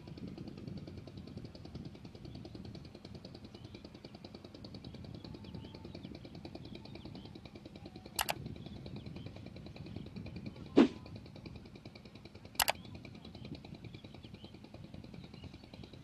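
Three sharp click sound effects over a steady background hiss, about 8, 11 and 12.5 seconds in, the middle one loudest. They are the mouse clicks of an on-screen subscribe-button animation.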